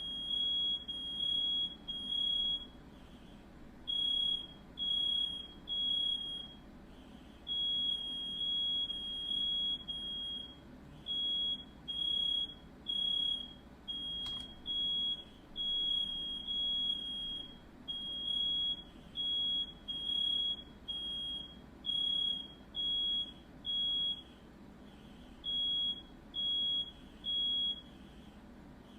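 Smoke alarm sounding: a high-pitched beep repeating in short groups with brief pauses between them, over and over, the alarm pattern set off by smoke.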